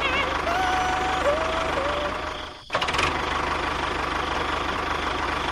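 Tractor engine running steadily at idle with an even, rapid pulse. A thin held tone sounds over it for the first two seconds, and the sound briefly drops out about two and a half seconds in.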